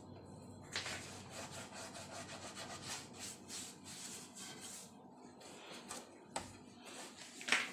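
Hands kneading puff pastry base dough in a wide earthenware bowl: repeated rubbing and squashing strokes of the dough against the clay. A sharp knock comes about a second in and two more short knocks near the end, the last the loudest.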